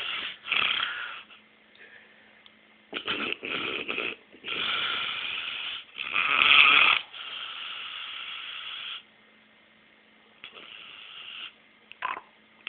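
A middle-aged man snoring loudly and irregularly, about six snores of uneven length with short pauses between, the loudest about two-thirds of the way through. Heard through a cellphone's microphone, so the sound is thin.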